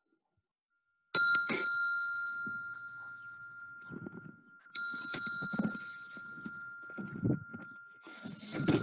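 Metal hand bell struck three times, about three and a half seconds apart, each strike ringing on in a steady high tone that slowly fades. Low rustling and knocking sounds come in between the strikes.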